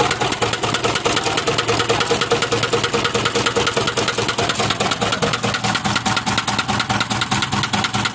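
Isuzu 4HL1 four-cylinder diesel engine idling with a loud, rapid, even knock. The knock is traced to a broken piston and scored liner in cylinder number 4.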